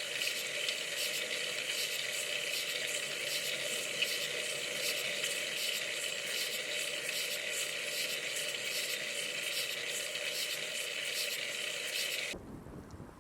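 Steady hiss of road and wind noise picked up by a camera on a moving bicycle. About twelve seconds in it cuts off abruptly and gives way to a quieter, lower wind rumble.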